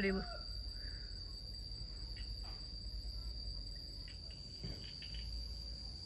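Crickets singing: one steady, unbroken high-pitched trill over a low background rumble.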